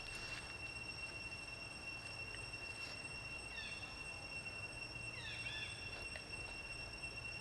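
Outdoor ambience of insects droning steadily at a few fixed high pitches, with a few short high chirps about three and a half and five seconds in.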